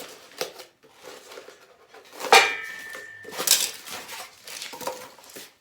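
Steel clamp parts of clamp-on pallet forks clanking against each other and being set down as they are handled. The loudest clank comes about two seconds in and rings briefly. Lighter knocks follow near the middle and near the end.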